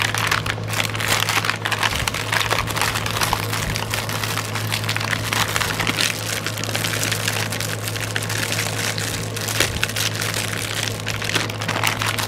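Packaging crinkling and crackling continuously as it is handled, over a steady low electrical hum.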